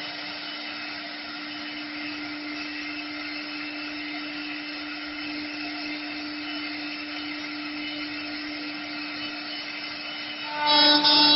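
Router spindle of a TJ1530 CNC wood lathe running with a steady hum and hiss. Near the end it gets suddenly louder, with a high whine as it works the wood.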